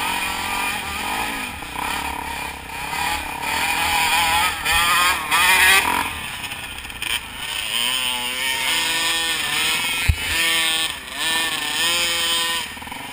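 Dirt bike engine heard from on board, revving up and dropping back again and again as it rides a rough dirt trail. A single sharp thump comes about ten seconds in.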